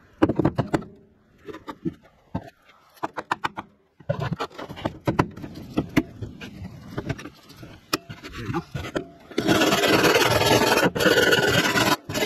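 Several sharp knocks and scraping on the aluminum boat hull. From about nine seconds in, a loud, steady power grinder runs, grinding paint and debris out of the crack to get it ready for welding.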